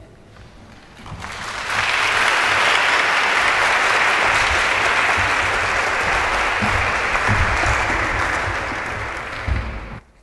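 Audience of a few hundred in a tiered hall applauding: the clapping swells over the first two seconds, holds steady, then dies away near the end.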